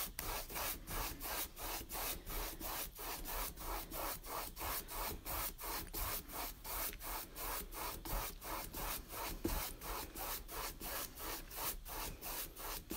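Paintbrush scrubbing back and forth across a stretched canvas, blending paint in quick, even strokes at about three to four a second.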